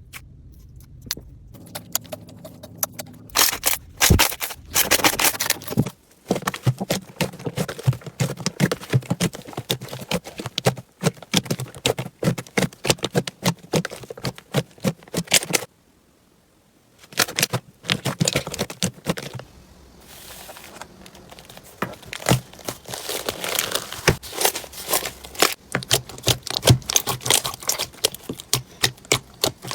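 Slime being squeezed, pressed and stretched by hand, giving dense runs of crackling and popping clicks. It stops briefly twice: near silence for over a second in the middle.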